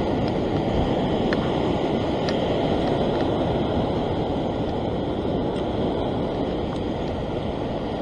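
Sea surf breaking and washing over a rock shelf, a steady rushing noise, with wind buffeting the microphone.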